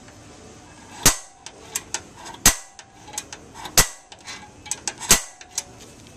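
Spring-loaded automatic center punch snapping against the sheet-metal radiator support: four loud, sharp snaps about a second and a half apart, with lighter clicks between them. Each snap marks the center of a spot weld so it can be drilled out.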